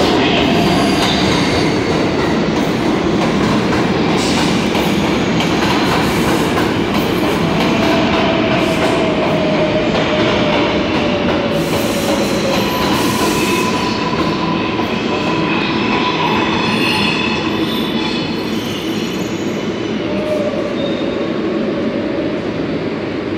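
R142A subway train pulling into a station past the platform, its wheels and cars rumbling steadily. A faint whine falls slowly in pitch through the middle as the train brakes and slows to a near stop.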